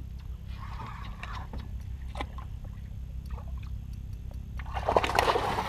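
A hooked redfish thrashing at the surface: a loud splash of water near the end, over a steady low rumble.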